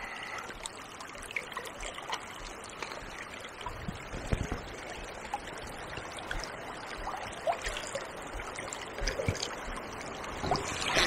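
Fast, shallow river water running and trickling steadily, with small splashing ticks and a brief low bump about four seconds in.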